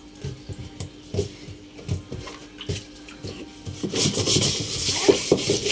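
Water splashing and sloshing in a washing machine being scrubbed and rinsed, with scattered knocks and clatters of handling. The splashing gets louder about four seconds in.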